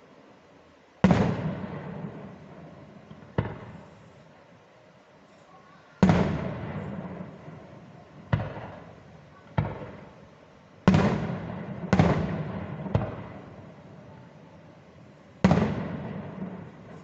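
Fireworks shells bursting in the air one after another: about nine bangs at uneven intervals, each trailing off in a long echoing rumble. The loudest come about a second in, around six seconds, twice in quick succession near eleven and twelve seconds, and again near the end.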